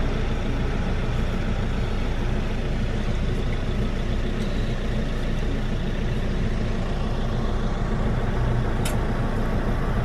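Steady low engine rumble of an idling car, heard from inside the cabin with the window down, with a single click near the end.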